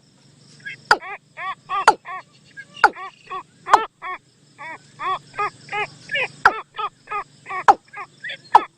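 Bird lure-call recording of the bird known in Thai as nok tum. A quick run of short, arched calls, about three a second, is broken roughly once a second by sharp calls that sweep steeply down in pitch.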